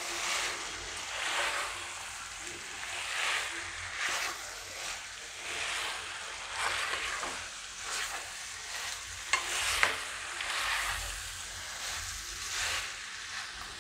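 Boiled potato pieces and spice paste being stirred and turned in a non-stick kadai with a silicone spatula: a scraping swish about once a second over a light sizzle. A couple of sharp taps about two-thirds of the way through.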